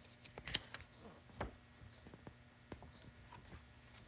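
Faint, scattered clicks and light taps, a few in all, over quiet room tone.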